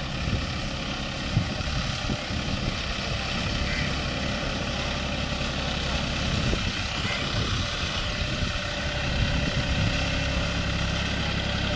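John Deere 5050D tractor's three-cylinder diesel engine running steadily, driving a rotavator through a waterlogged field.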